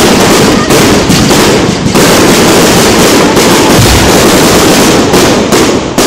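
Aerial fireworks display: shell bursts and crackle following one another so fast that the bangs run together almost without a break, very loud.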